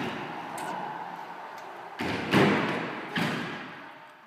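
Kick scooter wheels thudding and rolling on wooden skatepark ramps. A rumbling roll fades through the first two seconds, then come fresh thuds about two seconds in and again about a second later, each dying away.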